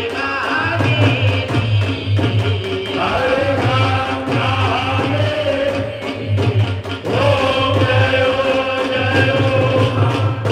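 Hindu devotional song, a singing voice over a steady low drum beat of about two beats a second.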